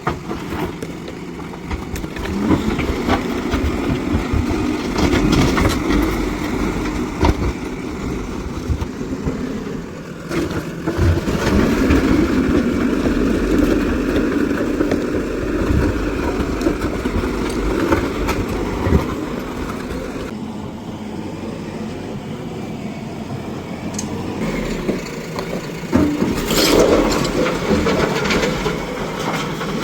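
JCB backhoe loader's diesel engine running and working, its sound swelling and easing with load, with scattered knocks and clanks.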